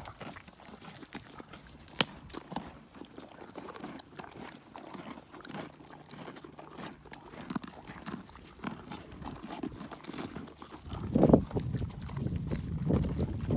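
Ponies crunching and chewing carrots: a steady run of crisp crunches, with one sharp snap about two seconds in. It gets louder and closer near the end as a muzzle takes carrot from a hand right at the microphone.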